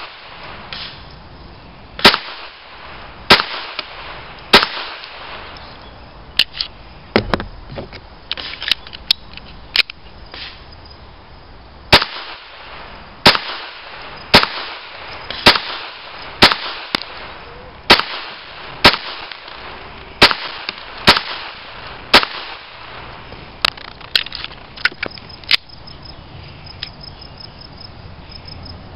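Walther P22 .22 LR pistol firing, shot after shot at about one a second, with fainter pops in between. Near the end the firing thins out.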